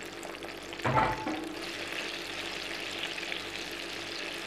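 Pieces of salted Spanish mackerel frying in hot oil in a wok: a steady crackling sizzle, with a single knock about a second in, after which the sizzle is a little louder.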